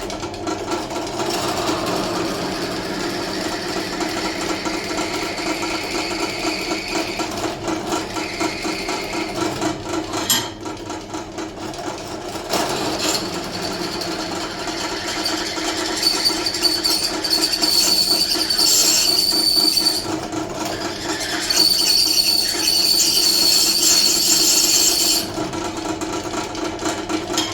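Drill press running slowed down, a fresh 5 mm bit grinding into a Damascus steel knife blade, with a high squeal from the bit on the steel that comes and goes in the second half. The bit is struggling to cut through.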